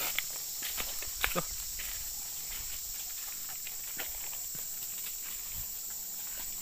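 Footsteps crunching and rustling on dry leaf litter, a few sharp twig-like clicks among them, over a steady high-pitched buzz of forest insects.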